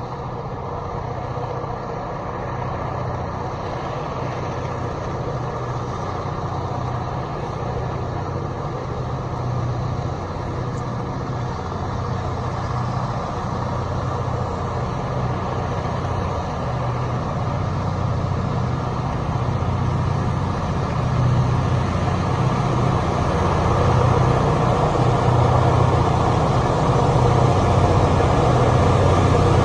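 Diesel freight locomotive approaching, its low engine rumble growing steadily louder as the train nears.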